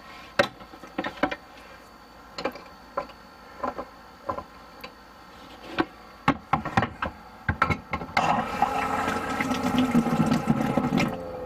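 A series of light clicks and knocks from fitting and handling parts at the shower valve, then about eight seconds in, water rushing out of the newly plumbed shower valve into a pail for about three seconds, cutting off near the end.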